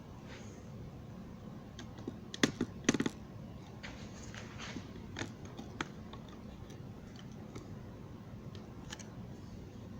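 Scattered light clicks and taps from handling, with a few sharper clicks about two and a half to three seconds in.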